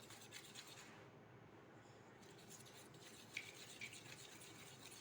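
Faint scraping and light ticks of a spoon stirring glue in a bowl as colour is mixed in, with a couple of small taps a little after the middle.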